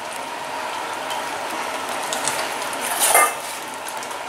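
Pots bubbling steadily on the hob, with light clicks of wooden tongs and glass as a sterilised jar is lifted out of boiling water. A louder clatter of kitchen utensils comes about three seconds in.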